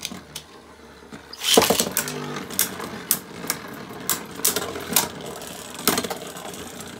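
Modified Beyblade Burst spinning tops, one a super-ized Alter Chronos, whirring in a plastic stadium. A second top lands with a clatter about a second and a half in, and the two then clash with sharp clacks about twice a second.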